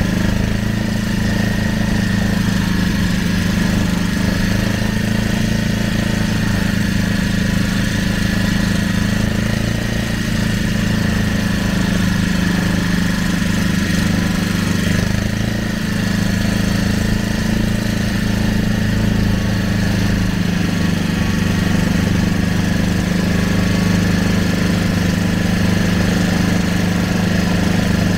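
Small motorboat engine running steadily at a constant speed, a low, even hum that neither rises nor falls.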